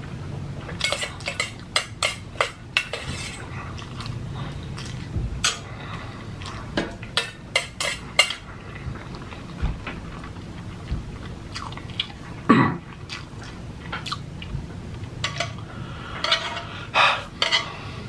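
Eating utensils clicking and knocking against a dish at irregular moments, with chewing in between. A louder single sound comes about twelve and a half seconds in, and a short run of fuller sounds near the end.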